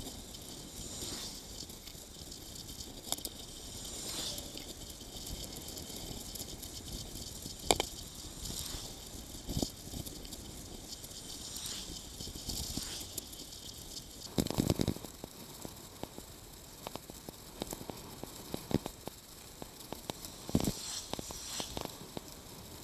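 Bicycle riding noise: a steady hiss with a running clatter of small rattles and knocks over the road surface. Sharper knocks come about 8 seconds in and around 15 and 21 seconds.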